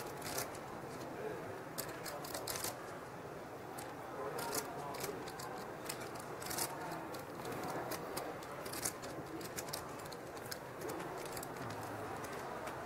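Clay poker chips clicking as a player fingers and shuffles his stack: irregular clusters of sharp little clicks, over a low background murmur.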